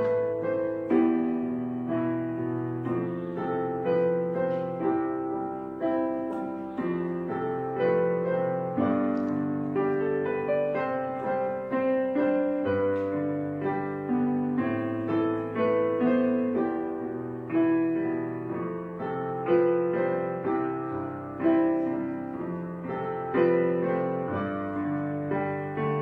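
Background piano music: a steady flow of struck notes and chords.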